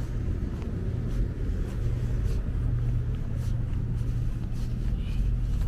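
City street ambience: a steady low rumble of road traffic, with light footsteps ticking along every half second or so.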